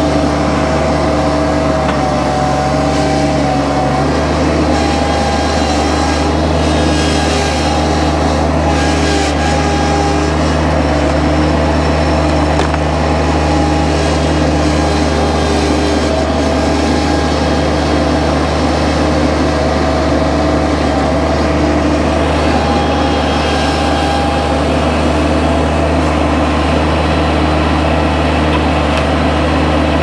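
Bobcat MT100 mini skid steer's engine running steadily under work, with a higher whine that comes and goes over it; the engine note shifts slightly about four seconds in.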